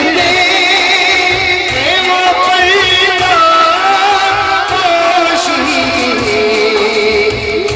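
A man singing a devotional naat into a microphone over a sound system, drawing out long ornamented notes with a wavering melody. A regular low beat pulses beneath the voice.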